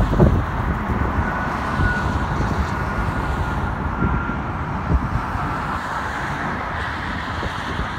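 Gusty wind rumbling on the microphone over a steady outdoor rush, with a faint thin whine in the first half from the engines of a small business jet on landing approach, gear down.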